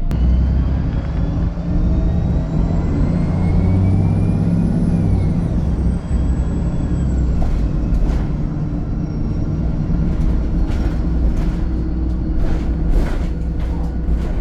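VDL SB200 Wright Pulsar 2 single-deck bus under way: its diesel engine running with a high whine that rises and then falls a few seconds in. Several sharp knocks or rattles in the second half.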